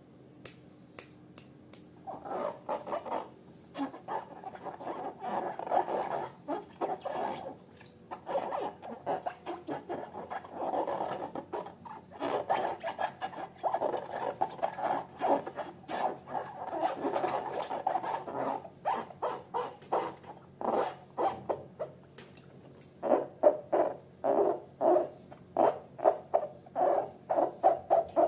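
Slime being squeezed and worked by hand: a dense run of short sticky clicks and crackles with rubbing, turning into a quicker, regular series of squelches in the last few seconds.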